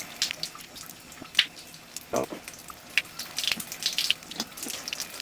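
Tap running warm water into a sink, a steady patter with small splashes and drips.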